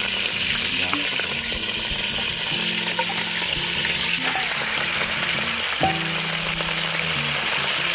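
Pieces of lamb on the bone frying in very hot oil: a steady, even sizzle.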